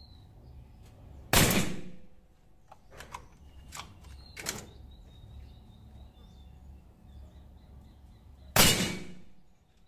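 Marauder PCP air rifle firing two shots about seven seconds apart, each a sharp crack with a short fading tail. In between there are a few small metallic clicks as the bolt is worked to load the next pellet.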